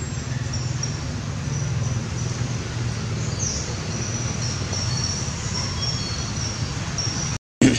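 Outdoor background: a steady low hum with faint, broken high-pitched calls above it. Near the end the sound cuts out for a moment and comes back with a sharp click.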